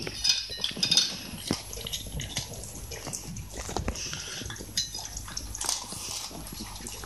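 Shiba Inu eating dog biscuits from a stainless steel bowl: wet licking and chewing, with scattered short clicks of its muzzle and teeth against the metal.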